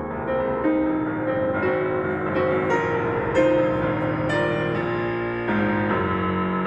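Solo piano playing a slow interlude of sustained chords and single notes between sung phrases of an art song.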